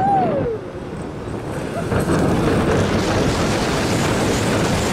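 A rider's yell sliding down in pitch at the start, then wind rushing over the microphone and the roller coaster train rumbling along its steel track as it dives and turns, louder from about two seconds in.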